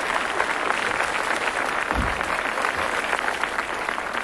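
Theatre audience applauding steadily: a dense, even patter of many hands clapping.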